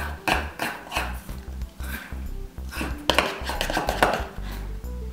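Background music with a steady bass beat, over a spoon knocking and scraping against a mixing bowl as bread dough is stirred.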